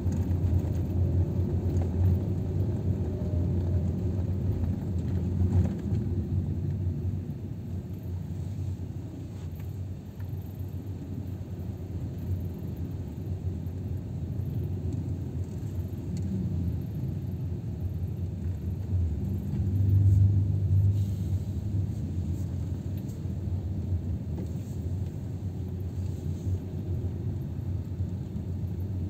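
Car engine and road noise heard from inside the cabin while driving: a steady low rumble that swells briefly about two-thirds of the way through.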